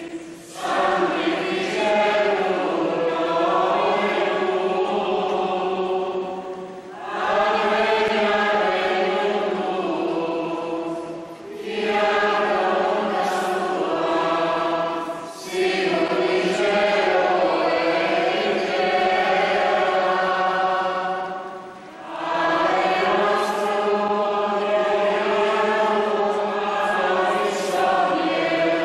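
Many voices in a church congregation and choir singing a slow, chant-like hymn together. The long held phrases are broken by brief pauses for breath.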